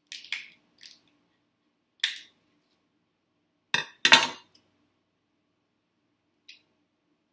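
Crab leg shell being snipped with kitchen scissors and cracked apart by hand: a handful of short, sharp crunches and snaps, the loudest about four seconds in.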